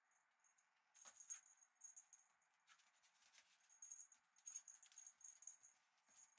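Faint jingling from a feather teaser toy as it is dangled and batted, in short repeated bursts starting about a second in, with light clicks of a Shiba Inu puppy's paws on the hard floor as it jumps at the toy.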